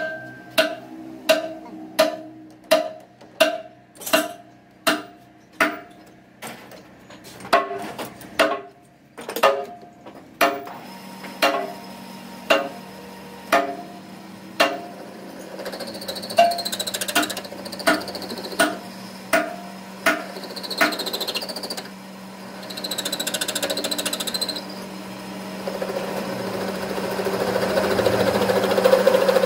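Wooden mallet knocking on a steel bar held in a lathe's four-jaw chuck, tapping it true: sharp ringing knocks about every 0.7 s for the first ten seconds or so, with a short pause. Then the lathe runs with a steady hum, and near the end the turning tool starts cutting the bar's end with a rising scraping hiss.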